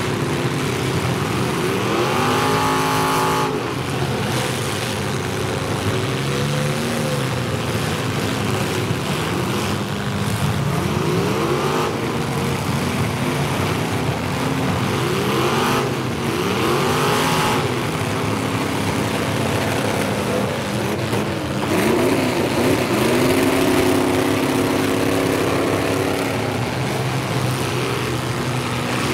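Several full-size demolition derby cars' engines revving and running at once, their pitches rising and falling over one another, with now and then the bang of cars colliding.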